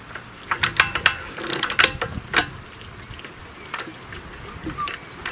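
Old Ruston & Hornsby stationary engine being turned over by hand to test the magneto for a spark: a quick run of sharp mechanical clicks and clacks, then a few scattered ones later on.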